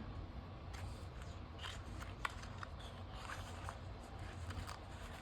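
Paper sticker sheets being handled: soft rustling with a few small scattered clicks, over a steady low hum.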